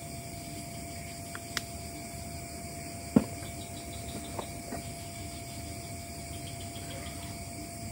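Steady outdoor night-time hiss with a faint steady hum, broken by a few sharp taps, the loudest about three seconds in.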